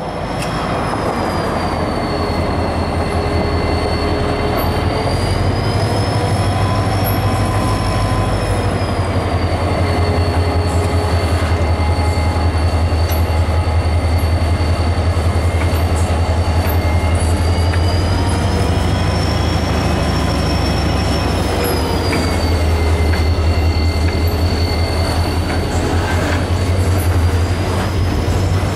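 Norfolk Southern diesel locomotive and its freight train rolling past, with a steady low engine rumble and wheel flanges squealing in thin high tones that slowly rise and fall.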